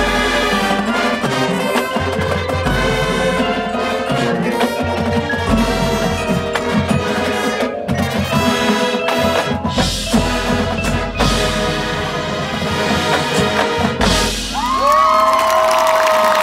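High school marching band playing its field show: winds over a front ensemble of marimbas, keyboards and percussion, with heavy low hits every few seconds. Near the end, notes slide up into a loud held chord.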